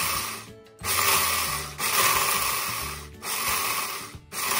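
Countertop blender pulsed in bursts about a second long with short breaks between them, grinding dry black beans into bean flour.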